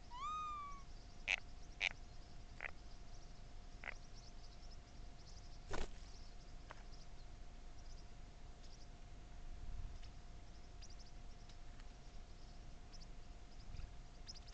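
A bird gives one short call right at the start that rises and then holds, followed by a few sharp clicks or taps at uneven intervals. Under it run a faint steady hum and faint high chirping.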